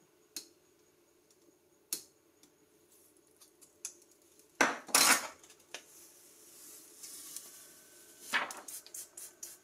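A plastic card ticking and scraping against the edge of a touchscreen, and a thin plastic screen-protector film peeling off the glass, with two short louder rustles: one about halfway and one near the end.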